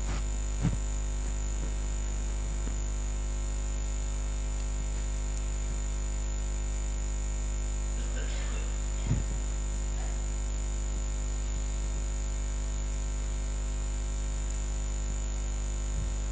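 Steady electrical mains hum and buzz in the audio line, with a high thin whine above it. Three soft thumps break in: about a second in, around nine seconds in, and near the end.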